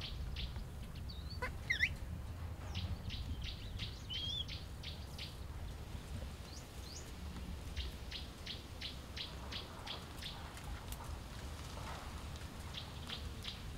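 Birds calling in several runs of short, rapid chirps at about four a second, with a few quick up-and-down whistled slurs between one and two seconds in and again around four seconds, over a steady low rumble.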